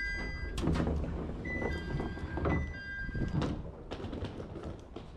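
An electronic two-tone chime sounding high-low over and over, a train door chime at a station stop. Several knocks and thuds come with it as the train's sliding doors work and passengers move, over a low rumble.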